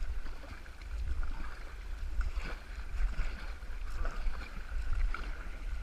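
Wind buffeting the camera's microphone in uneven gusts, over faint sounds of water moving around a kayak.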